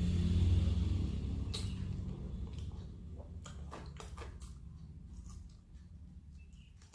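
A low rumble fading away over the first few seconds, with scattered short clicks and crunches of someone eating crispy fried chicken, and a sharper click at the very end.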